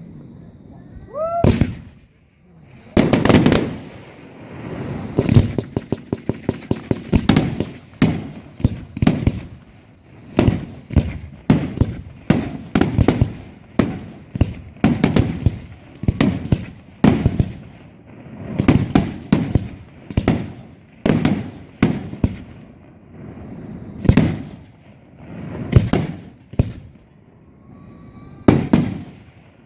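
Aerial fireworks display: a whistle rising in pitch about a second in, then a dense run of shell bursts, loud bangs with rumbling echoes one after another. A quick rattle of crackling reports comes a few seconds in.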